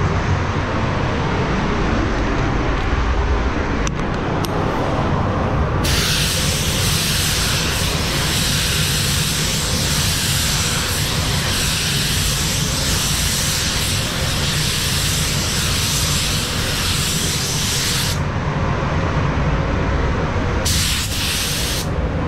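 Compressed air hissing from a paint spray gun: one long, even burst of about twelve seconds, then a short second burst near the end. It sounds over a steady low rumble.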